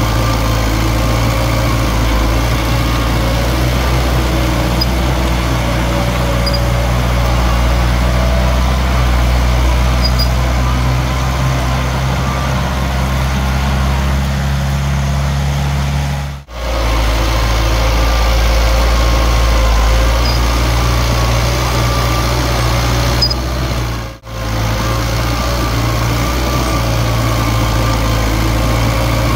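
Heavy diesel engine of earthmoving machinery running steadily with a deep hum. The sound drops out sharply for a moment twice, about halfway through and again about two-thirds in.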